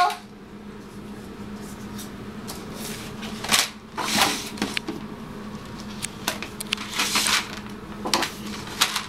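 Tabletop handling noises: a string of short rustles and clatters as paper worksheets and a clear plastic tub of small counters are moved about, over a faint steady hum.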